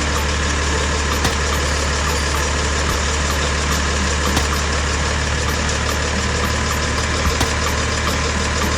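An engine idling steadily with an even low hum and a light regular ticking.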